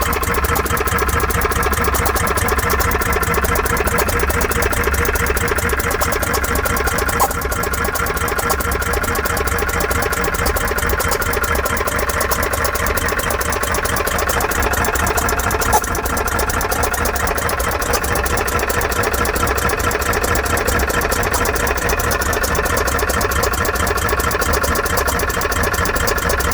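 A machine running steadily, with a squeaking noise that comes through plainly from about four seconds in.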